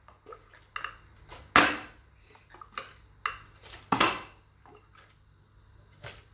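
Plastic water bottle flipped and landing on a tile floor: a string of sharp knocks, each followed by a short clatter. The two loudest come about a second and a half in and at four seconds.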